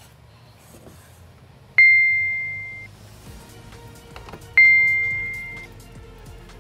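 Two bright bell-like dings, about three seconds apart, each starting sharply and ringing out for about a second, over quiet background music: a chime sound effect marking points scored.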